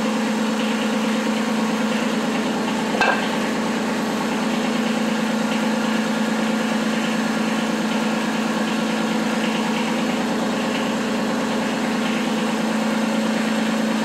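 Kubota B2301 compact tractor's three-cylinder diesel engine idling steadily, with one short knock about three seconds in.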